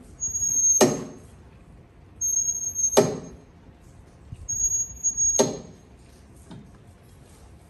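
Outdoor seated press exercise machine worked through three repetitions, about two seconds apart: each stroke gives a thin, high squeak that ends in a sharp clank.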